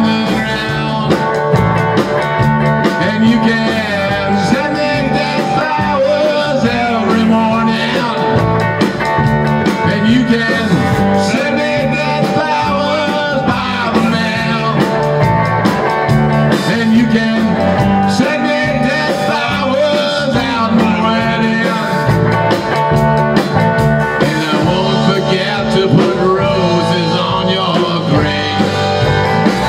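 Rock band playing live without vocals: electric guitar lines with bent, sliding notes over a steady drum kit beat.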